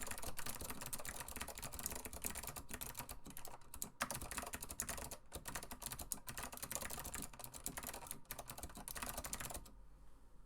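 Fast continuous typing on a vintage Acer KB-102AS keyboard with clicky Alps SKCM Blue switches, a dense stream of sharp key clicks, one louder about four seconds in. The typing stops shortly before the end.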